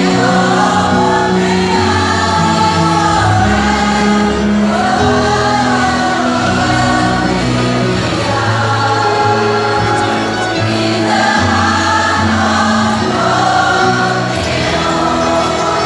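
Mixed choir of women and men singing together, over held low bass notes that change every second or two.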